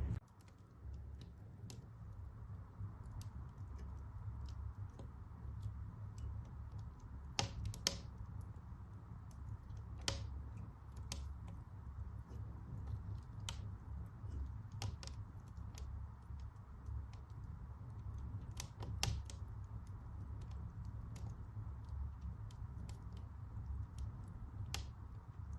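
Wood fire crackling in a fireplace: irregular sharp pops and snaps from the burning logs, a few louder than the rest, over a low steady rumble.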